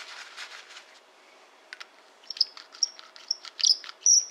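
Soft rubbing of a paper towel on a brass case, then a hand chamfer tool twisting in the mouth of a .308 Winchester brass case. The tool gives a run of short, high squeaks and clicks as its blade shaves the inside edge of the neck, the loudest near the end.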